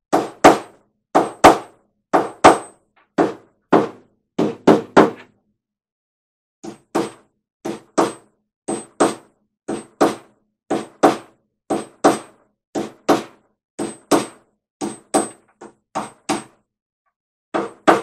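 Hand hammer striking a workpiece on a workbench, repeated blows at about two a second, many of them with a brief high ring. The hammering pauses for about a second and a half about five seconds in, then resumes at the same pace.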